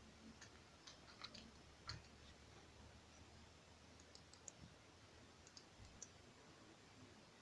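Near silence with a few faint, scattered clicks, the loudest about two seconds in.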